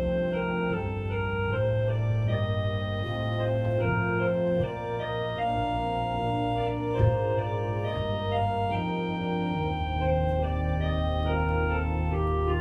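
Church organ playing slow sustained chords over long-held bass notes, the upper notes changing every second or so, with a short thump about seven seconds in.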